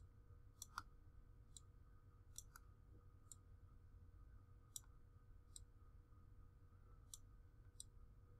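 About ten faint computer mouse clicks at irregular intervals, over near-silent room tone.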